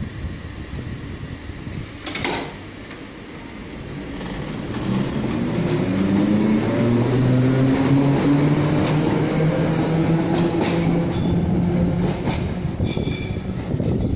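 Island Line Class 483 electric train, ex-London Underground 1938 tube stock, pulling away from a station. Its traction motors whine, the pitch rising slowly as it accelerates. Wheels click over rail joints, and a few sharp clicks and short high squeals come near the end.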